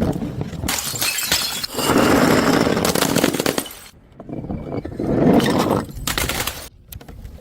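Glass bottles breaking and shattering in two spells: a long dense one starting about a second in and lasting about three seconds, then a shorter one a little after the middle.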